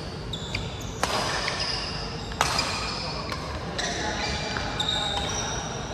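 Badminton play: two sharp racket strikes on the shuttlecock, about a second in and again near two and a half seconds, amid many short, high squeaks of shoes on the court floor.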